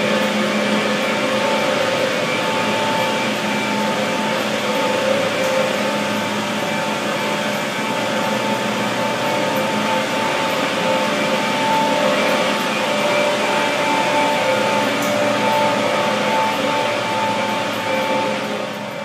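Running chillers: a loud, steady machine drone with several held tones over a dense hum. It fades near the end, as the machines are left behind.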